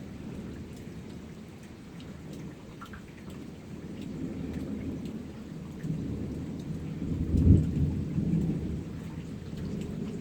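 Thunderstorm: heavy rain falling with thunder rumbling low, swelling to a loud thunderclap about seven and a half seconds in.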